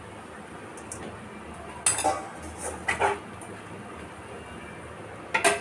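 Perforated steel skimmer clinking against the kadai while stirring taro stolons in salted water: two strikes about a second apart, then one more near the end, over a steady low hiss.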